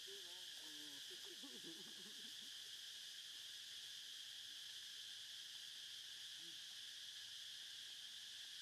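Faint, steady high-pitched insect chorus, an even drone that does not change.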